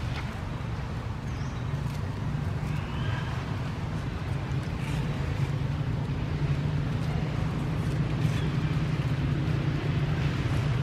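A steady low rumble, like an engine running, with a faint high chirp about three seconds in.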